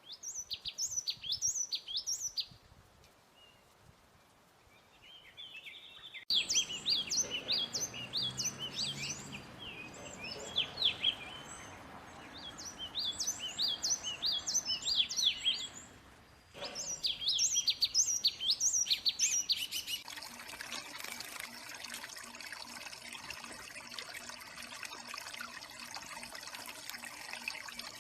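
Yellow tit song: quick series of sharp, high, falling notes in repeated phrases, broken off abruptly several times. In the last third it gives way to a steady hiss.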